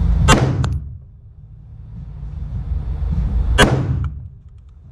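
Two pistol shots about three seconds apart, each ringing briefly off the walls of an indoor shooting range.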